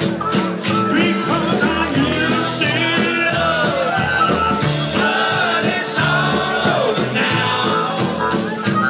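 A live rock-and-roll band playing: amplified harmonica wailing with bending notes over electric guitar, upright bass and drums.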